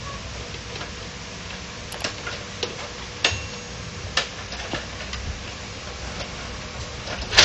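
Scattered light clicks and taps of a screwdriver and hands on the sheet-metal frame of an HP LaserJet 1010 being reassembled, over steady background noise.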